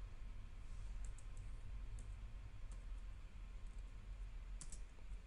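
Computer keyboard keystrokes: a few faint, spaced-out key clicks, two sharper ones near the end, over a steady low hum.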